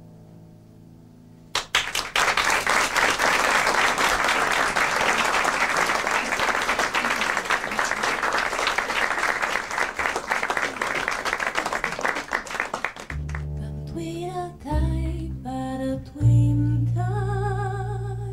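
A song's last chord dies away, then the audience breaks into applause, clapping for about eleven seconds. As the clapping stops, a new song starts with low bass notes and a woman singing a wavering melody.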